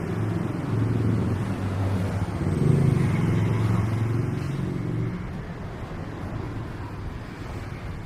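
A motor vehicle passing close by with its engine running over street traffic noise. It is loudest about three seconds in and fades after about five seconds.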